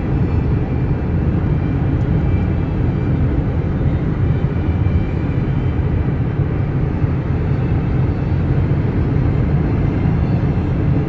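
2007 Dodge Ram 3500 turbo-diesel pickup driving on the road: a steady low rumble of engine and tyre noise.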